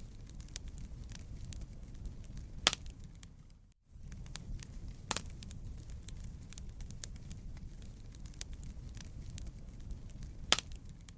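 Wood fire crackling in a fireplace: a steady low rumble of the flames, scattered small crackles and three sharp loud pops spread through. The sound drops out for a moment about four seconds in.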